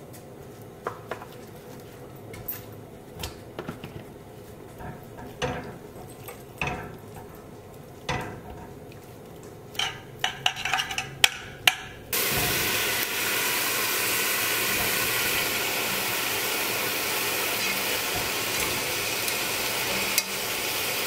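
A pot on a gas stove with scattered light clicks and knocks of a utensil against it. About twelve seconds in, a loud, steady sizzle starts suddenly as broccoli goes into the hot oil and is stirred.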